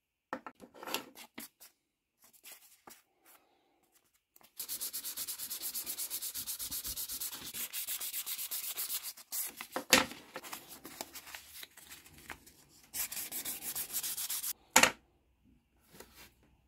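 Sandpaper rubbed by hand back and forth over a Mauser K98 bayonet grip panel in rapid, even strokes, in two long runs. Two sharp knocks come about ten seconds in and near the end.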